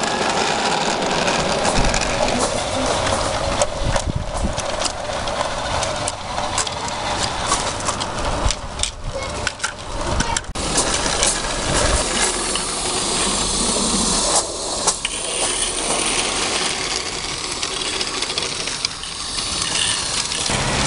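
16 mm-scale live steam garden railway locomotive running with a steady hiss of steam, its train of small wagons rattling and clicking over the track joints.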